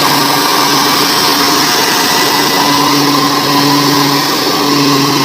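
Kubota DC70 combine harvester's diesel engine running steadily under load while harvesting, with a steady drone and whine over the machine's noise.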